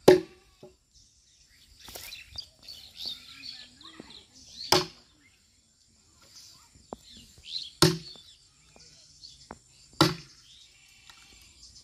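An axe chopping into a log: four sharp, woody strikes spaced a few seconds apart.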